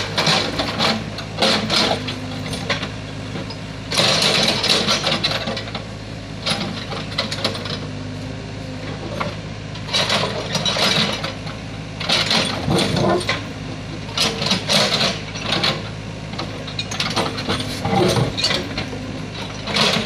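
Mini excavator at work: its diesel engine running steadily under irregular clattering and scraping as the bucket digs into and drops soil and rocks.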